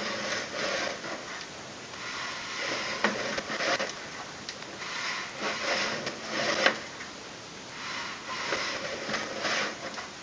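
Sewer inspection camera's push cable being pulled back by hand, with irregular rubbing and rattling and a few sharp clicks, the loudest about six and a half seconds in.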